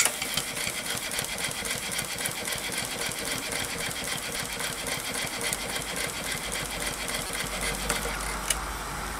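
Single-cylinder steam engine of a 2-inch scale Allchin live-steam traction engine running out of gear, a rapid, even mechanical beat from the cylinder and motion work. A single sharp click near the end.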